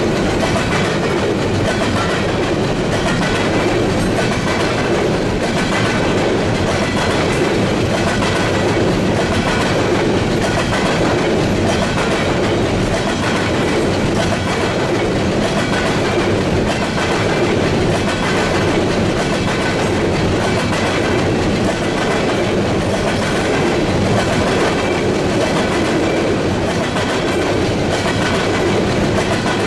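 Freight train cars rolling past at steady speed, their wheels clattering continuously over the rails.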